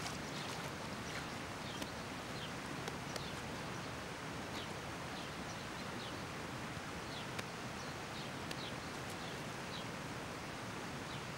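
Outdoor forest ambience: a steady hiss of running water and leaves, with short, falling bird chirps about once a second.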